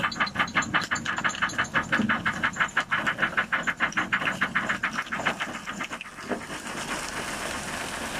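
An engine chugging with a fast even beat of about six pulses a second, over water and fish spilling from a tipping trailer. About six seconds in, the chugging stops and a steady rush of pouring water and fish remains.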